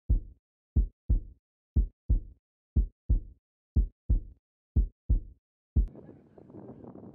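Heartbeat sound effect: slow double thumps, about one pair a second, six times over silence. Near the end the faint hiss of wind and outdoor background comes back in.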